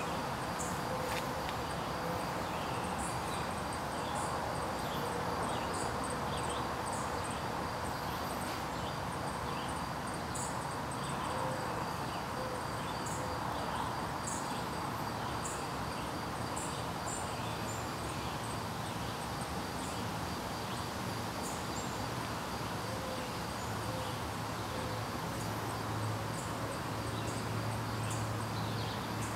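Outdoor ambience: a steady hiss with scattered short, high chirps, with a low hum joining in near the end.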